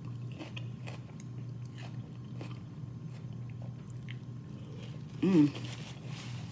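Close-up mouth sounds of a person eating seafood-boil food: chewing and biting with small wet clicks and crunches, over a steady low hum. A short vocal sound, an "mm", comes about five seconds in.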